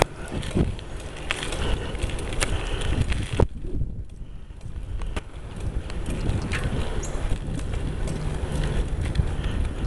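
Wind buffeting the microphone, with a running stream of small rattles and knocks from a bicycle being ridden. A sharp knock a little over three seconds in is followed by a brief lull.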